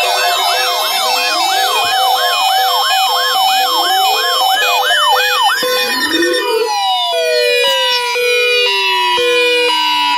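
Several sirens sounding together: a fast repeating up-and-down yelp of about three sweeps a second over slower rising wails. About six seconds in the yelp stops and the sirens wind down in long falling glides while a two-tone high-low pattern keeps alternating.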